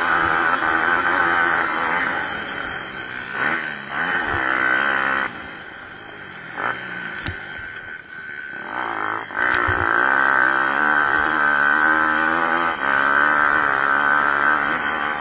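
Pit bike engines revving on a motocross track, their note rising and falling as the bikes ride the course. The sound drops for a few seconds in the middle, then comes back loud.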